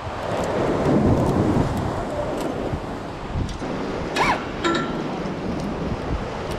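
Wind buffeting the camera microphone over surf breaking below, a steady rumbling noise, louder in the first two seconds. A brief rising-and-falling cry cuts through about four seconds in.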